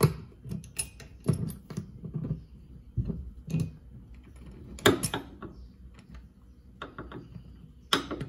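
Irregular metal clicks and knocks of hand-tool work as a wiper arm puller is fitted onto a wiper arm's spline stud and set up to pull it.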